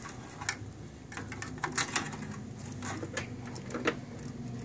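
Power-supply cables being handled and a power connector pushed onto a disk drive inside a desktop computer case: a scattering of short plastic clicks and knocks.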